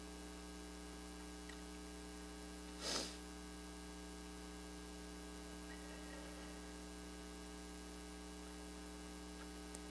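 Steady low electrical mains hum in the recording, with one short hissing noise about three seconds in.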